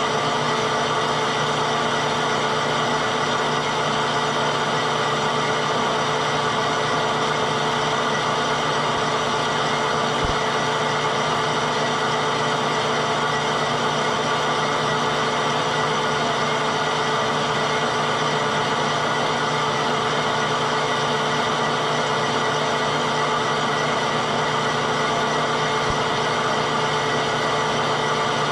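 Metal lathe running steadily while its tool takes a slow-feed continuous 20-thousandths finishing cut along the outside of a gray cast iron piston. A constant hum with several held tones, unchanging throughout.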